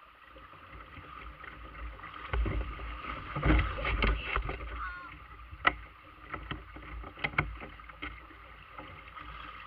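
Creek water running over a shallow riffle, with a plastic kayak hull bumping and scraping as it is handled in the shallows. A louder stretch of thumps comes about two to four seconds in, then a few sharp knocks on the hull.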